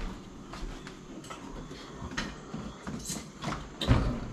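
Scattered clicks and knocks from parts and tools being handled, with one louder thump near the end.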